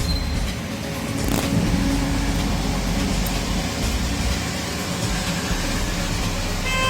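Road traffic: a steady engine rumble from passing vehicles, with a vehicle horn starting to sound right at the end.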